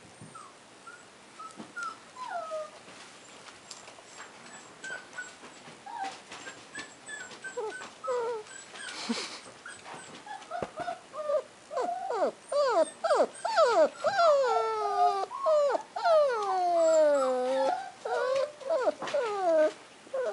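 Toy poodle puppy whimpering and whining in high cries that fall in pitch, scattered and faint at first, then coming close together and loud over the last eight seconds or so.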